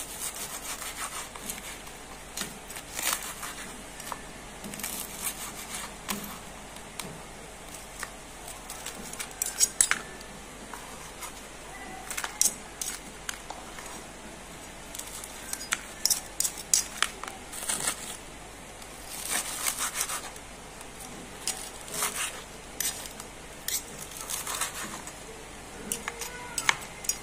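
Knife and fork cutting fried cireng (tapioca fritters) on a wooden cutting board and a ceramic plate: irregular scrapes and taps of metal on wood and china, in scattered clusters.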